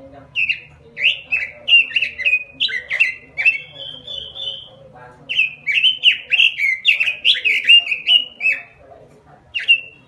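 Pekin robin (red-billed leiothrix) singing vigorously: fast, warbling phrases of rising and falling notes. It sings two long runs of song with a brief pause about five seconds in, then gives a single short note near the end.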